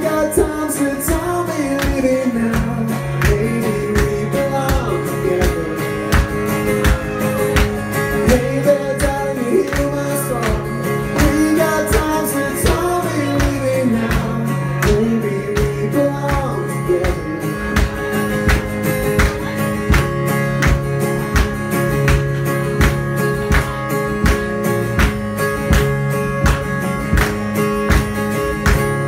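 Live acoustic guitar strummed in a steady rhythm, with a man singing over it.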